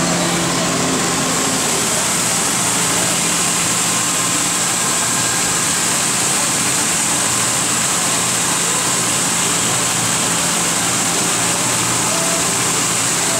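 Abplanalp TFG through-feed wet belt grinder running steadily, its coolant-soaked abrasive belt carrying large aircraft brake pads under the grinding head. A steady low hum under an even hiss, with no change in level.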